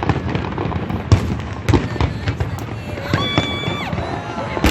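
Fireworks display: a rapid run of bangs and crackling over continuous rumble, the sharpest bangs about a second in and just under two seconds in. A high steady tone, held under a second, sounds about three seconds in.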